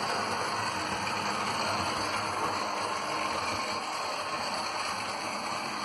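Steady rushing rumble of a model train and its camera wagon running along the track, picked up on board.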